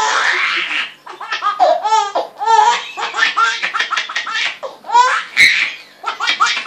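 Six-month-old baby laughing hysterically in quick repeated bursts of belly laughter, with a single short knock about two-thirds of the way through.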